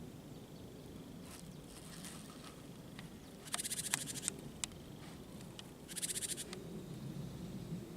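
Outdoor nature ambience: a steady low background with two short, rapid rattling trills, one in the middle and one a little later, and a few sharp clicks between them.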